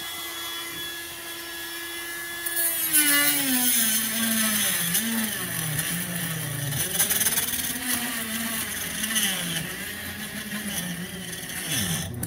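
Dremel rotary tool with a small cut-off wheel, first running free with a steady high whine. From about three seconds in it cuts into the plastic body around the seized forward/reverse selector: the motor's pitch drops and wavers under load, with a gritty rasp on top.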